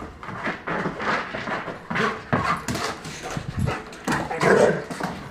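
A dog barking and whining in short, irregular bursts.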